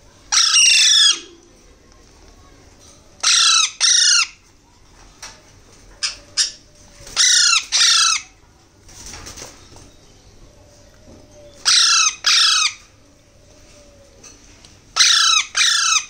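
Alexandrine parakeet chicks giving loud, harsh squawks, mostly in pairs, about every three to four seconds: the begging calls of young parrots being syringe-fed.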